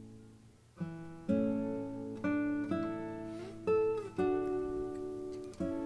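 Background music on acoustic guitar: plucked notes and chords, each ringing out and fading before the next is struck.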